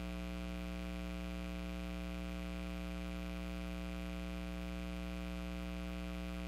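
Steady, unchanging electrical hum: a low buzz with a stack of overtones, typical of mains hum or a ground loop in the audio feed.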